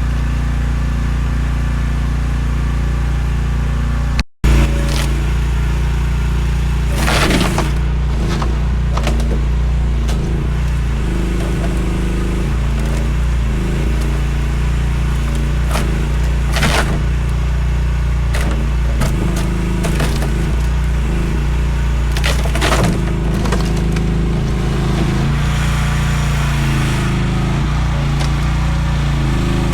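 Mini excavator's engine running steadily, with a few brief scraping knocks over it.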